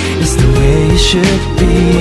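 Background music: a pop-style song with a steady beat and bass line.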